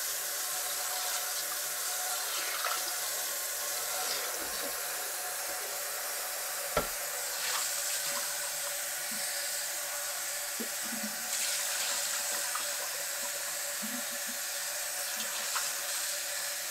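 Kitchen tap running a steady stream of water into a cast-iron skillet in the sink, the water splashing and swirling in the pan. One brief knock about seven seconds in.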